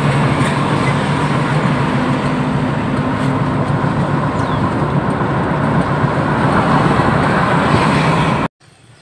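Steady low engine drone of a heavy vehicle with tyre and road noise, heard from a vehicle driving among LPG tanker trucks. It cuts off abruptly near the end.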